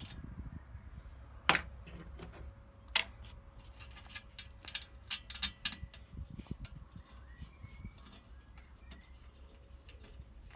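Small clicks and knocks of diesel-heater parts being handled and pushed into place during reassembly, with two sharper knocks in the first few seconds and a flurry of light clicks around the middle.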